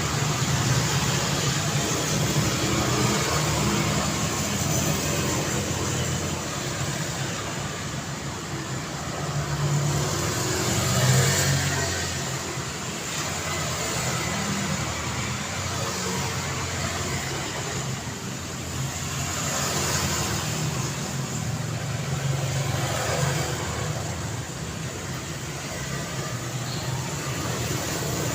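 Street traffic: a steady low hum of engines with the rush of vehicles passing, swelling as individual vehicles go by, the loudest about eleven seconds in.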